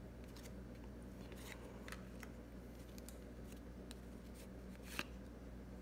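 Baseball cards slid one at a time off a handheld stack: faint crisp flicks and clicks of card stock, with a sharper click about five seconds in, over a low steady hum.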